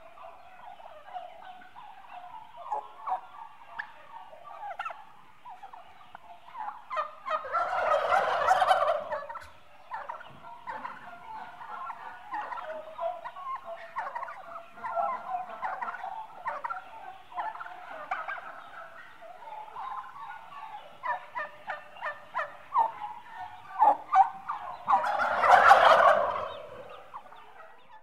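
A flock of eight-month-old turkeys, mostly hens, calling in a continuous chatter of short notes. Two louder, longer outbursts rise above the chatter, one about eight seconds in and one near the end.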